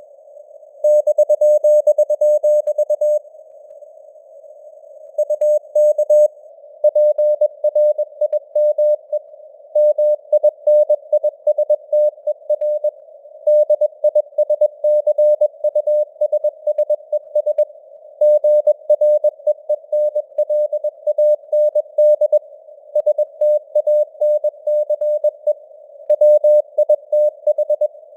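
Morse code (CW) tone keyed in quick dots and dashes at about 21 words per minute, with short gaps between words. It sits in a narrow band of simulated radio receiver hiss.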